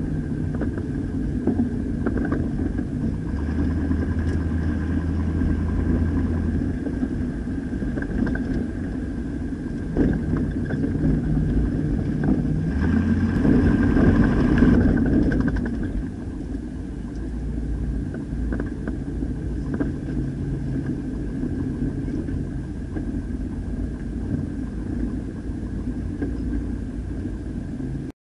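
A car driving along a street, heard from inside: engine running with road noise, swelling louder for a couple of seconds around the middle. It cuts off suddenly near the end.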